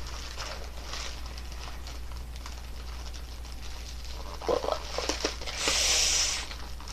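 A sticker being picked at and peeled off a paper-wrapped package: faint crinkling and scratching of paper, then near the end about a second of high hissing as the sticker pulls away.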